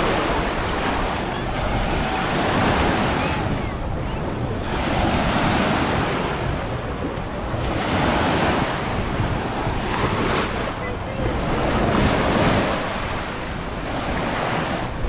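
Waves washing onto a sandy beach, the surf swelling and easing every two to three seconds, with wind buffeting the microphone.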